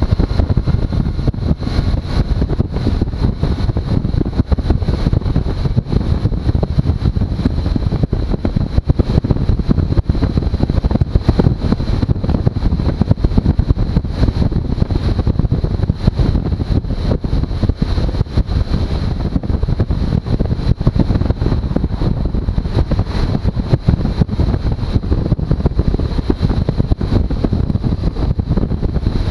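Suzuki V-Strom motorcycle running steadily, with wind noise on the microphone and a thin steady high whine above the engine.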